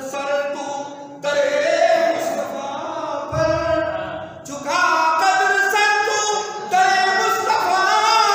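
A man singing Urdu devotional verse in a melodic recitation style (tarannum) through a microphone and PA, with long held, gliding notes.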